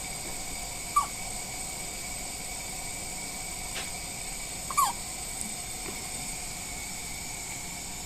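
A premature newborn baby's hiccups: two short, squeaky hics that fall in pitch, about four seconds apart, over a steady high-pitched electronic hum.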